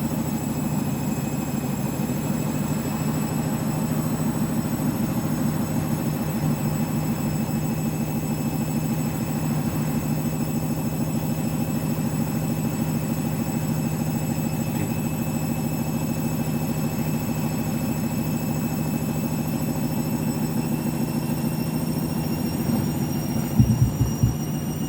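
Washing machine with a load of towels running, its motor giving a steady whine over a low hum of the turning drum; the whine dips slightly in pitch and rises again near the end. A few loud thumps come just before the end.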